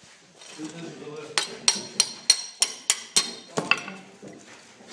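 Hammer striking with a metallic ring, about eight quick blows in a row, chipping at plaster and rubble.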